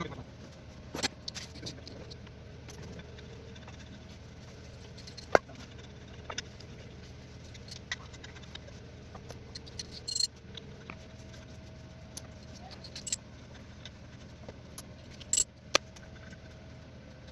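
Scattered sharp metallic clinks and knocks of workshop tool work over a steady low hum, the loudest knock about five seconds in and two quick ones near the end.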